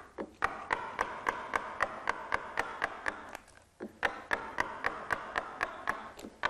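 Mallet tapping a wide number 7 carving gouge through wood, roughing out a relief carving. Quick, even taps, about four a second, with a short pause a little past halfway before the tapping resumes.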